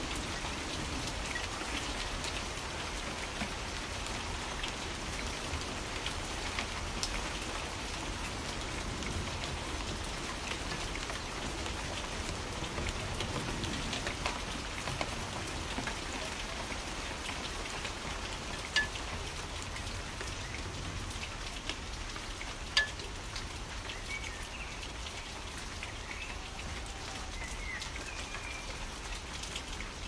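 Steady rain falling: an even hiss of rain with individual drops ticking, two of them sharper past the middle. A few faint bird chirps come in near the end.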